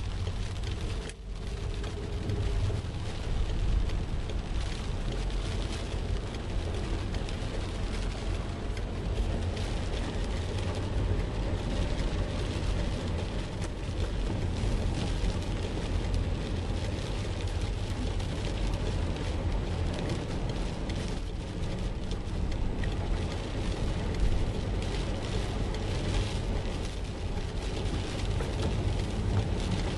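Car driving through deep floodwater, heard from inside the cabin: water washing and splashing against the car's body over a steady low rumble.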